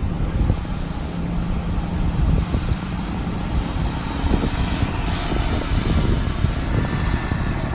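Bucket truck's engine running steadily, a continuous low drone with an uneven rumble underneath, while the hydraulics are about to raise the chip box.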